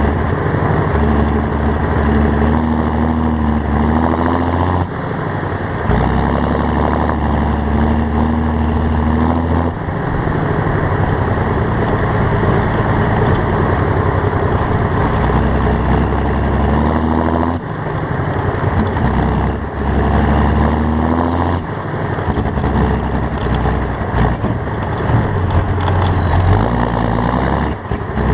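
John Deere 7530 tractor's six-cylinder diesel engine under load, its pitch climbing and then dropping suddenly about four times as it shifts up through the gears. A high whine rises and falls along with the engine.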